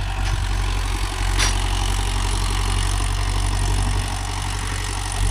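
Mahindra Yuvo Tech 585 4WD tractor's diesel engine running steadily, with one brief click about a second and a half in.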